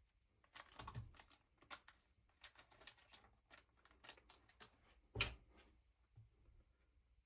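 Faint, irregular clicks and taps of small plastic RC-car parts being handled on a workbench, with one louder click about five seconds in.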